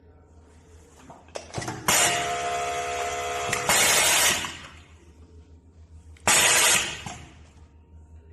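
Automatic rib cuff setting machine, a 4-thread overlock, sewing in a steady run of about a second and a half, followed by a loud hiss and, a couple of seconds later, a second short hiss.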